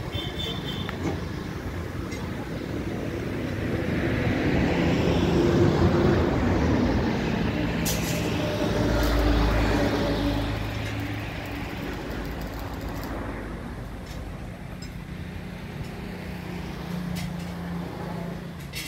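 Engine running steadily, growing louder from about four seconds in, with a deep rumble just after the middle, then easing off.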